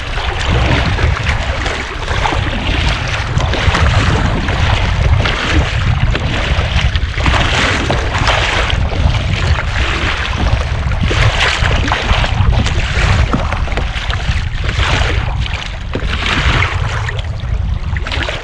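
Kayak paddle strokes splashing through choppy sea water, a swell of splash about every one to two seconds, over a heavy low rumble of wind on the microphone.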